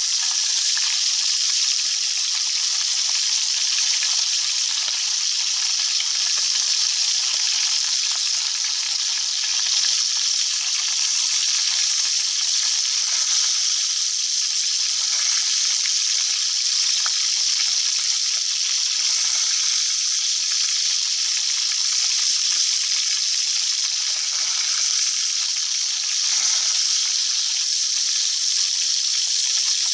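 Small sea fish deep-frying in hot oil: a steady, loud sizzle.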